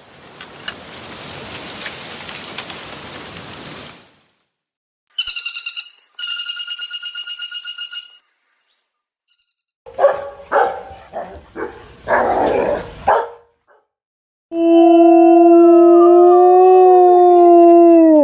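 A dog barking in a quick irregular series, then one long, steady howl held for about four seconds near the end. It is preceded by a few seconds of buzzing and a rapid, high-pitched pulsed trill.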